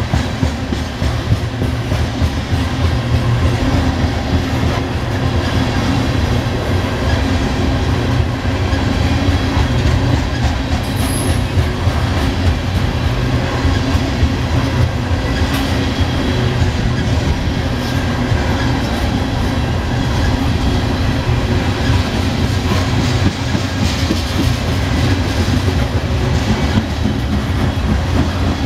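Norfolk Southern coal train's hopper cars rolling past close by: a steady, loud rumble and clatter of steel wheels on the rails.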